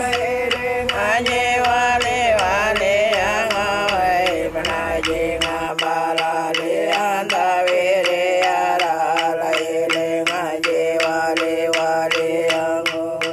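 Music: a voice singing over a steady beat, with the low bass dropping out about six seconds in.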